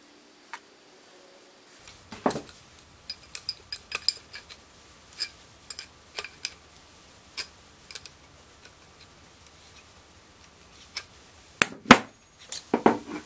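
Small brass pipe fittings and a steel adjustable wrench clicking and clinking against each other as fittings are handled and threaded together by hand, a scatter of sharp ticks. A few louder knocks near the end as metal is put down on the bench.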